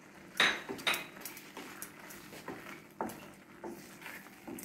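Wooden spatula stirring thick chana dal in a pan, with a few sharp scrapes and knocks against the pan: the loudest about half a second and a second in, another about three seconds in.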